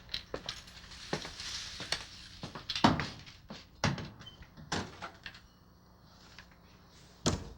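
A series of sharp knocks and thumps, the loudest about three seconds in and another near the end.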